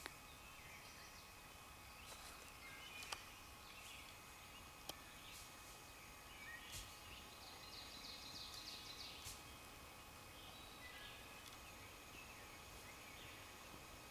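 Quiet woodland with faint scattered bird chirps and a short high trill a little past the middle. Two sharp ticks sound about three and five seconds in.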